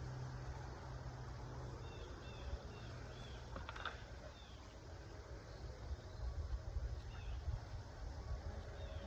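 Faint high bird chirps over a low steady rumble, several short calls about two to four seconds in and a few more near the end.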